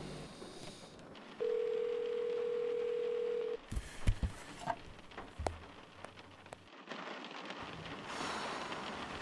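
A steady single-pitched tone held for about two seconds, followed by a few scattered sharp clicks and knocks.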